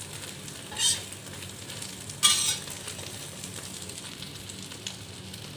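Egg and winged-bean omelette sizzling as it fries in oil in a pan, with two short scrapes of a metal spatula against the pan, about one and two seconds in.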